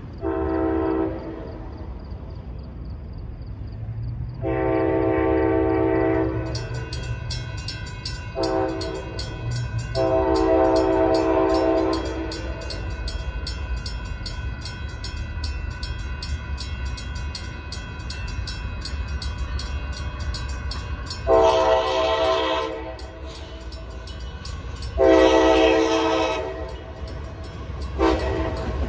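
Union Pacific freight locomotive's air horn sounding the grade-crossing signal, long, long, short, long, and starting the same pattern again about three quarters of the way through as the train approaches the crossing. From about a quarter of the way in, a railroad crossing bell rings rapidly and steadily under the horn.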